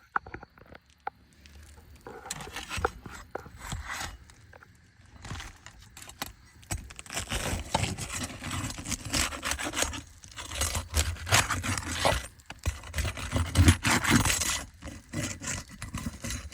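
Asphalt roof shingles being handled and lifted by hand: irregular rough scraping and rubbing with scattered clicks and knocks, busier and louder in the second half.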